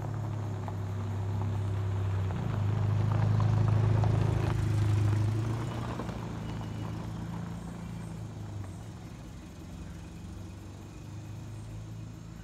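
A motor engine's low, steady hum swells to its loudest a few seconds in, then fades away, as a vehicle passes by.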